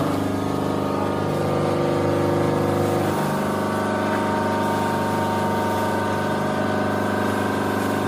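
Hydraulic power pack of a triple-action mild-steel scrap baling press running with a steady hum and whine, its tone shifting slightly about three seconds in.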